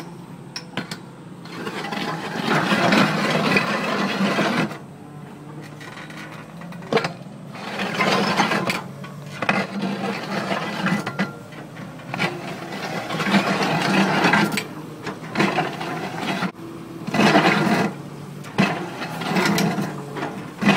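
Excavator-mounted auger boring into rocky ground: uneven grinding and scraping of the auger against rock, swelling and easing in surges, over the steady hum of the excavator's engine.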